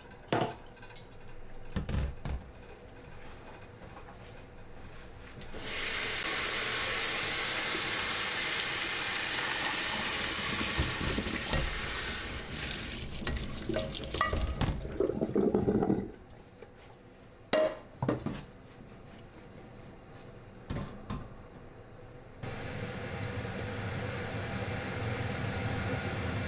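Water running or pouring in a kitchen sink for several seconds, then clinks and knocks of kitchenware. A second, lower stream of running water starts near the end.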